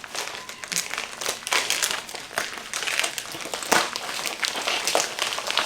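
Packaging crinkling and rustling in irregular bursts as a new tripod is unwrapped by hand, with one sharper knock about two-thirds of the way through.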